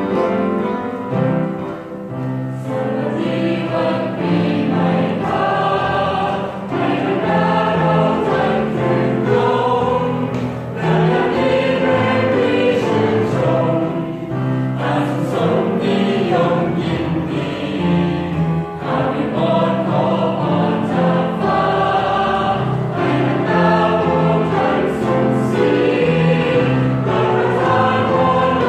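Music with a choir singing slow, sustained phrases.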